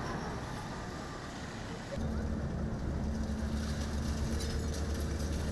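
Volvo excavator's diesel engine running steadily close by, coming in sharply about two seconds in, with scattered clatter of rubble toward the end.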